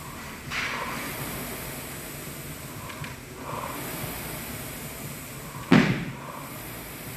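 Air rowing machine's fan flywheel whooshing with each pull stroke, a swell about every two and a half seconds. A single loud, sharp thump about six seconds in.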